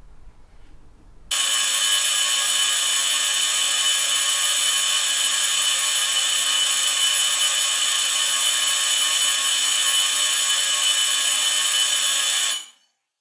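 Electric doorbell ringing nonstop, held down for about eleven seconds: a loud, steady electric ring that starts suddenly just over a second in and cuts off near the end.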